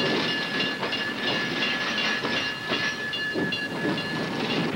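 Railroad freight cars rolling past on the track: a steady rumble with irregular clanks and clatter, and a high-pitched squeal of the wheels held throughout.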